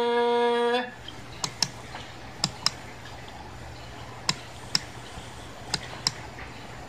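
A man's unaccompanied sung note, held steady, cuts off just under a second in. After it, a faint low hum continues, with sharp clicks in pairs about every second and a half.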